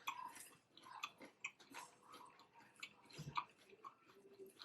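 Faint eating sounds: scattered small clicks and crunches of salad with ranch being chewed and handled close to the microphone.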